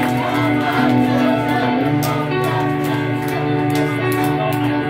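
Live indie rock band playing an instrumental passage: electric guitars and bass guitar holding sustained notes over drums with cymbal hits.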